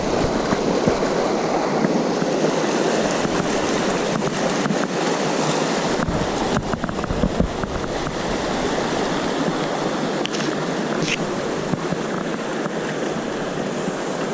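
Fast mountain river rushing over rocks: a steady, close rush of whitewater in shallow pocket water, with a few brief clicks about six to seven seconds in.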